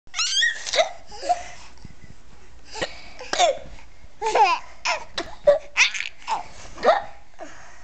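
A child making fake hiccups, a string of short sharp gulping hiccup sounds, while a baby laughs at them in high-pitched bursts.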